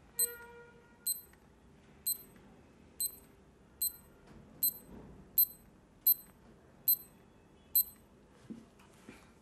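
Small digital alarm clock's electronic beeper sounding its alarm: ten short, high-pitched beeps, about one a second, that then stop, followed by two soft taps on the clock near the end.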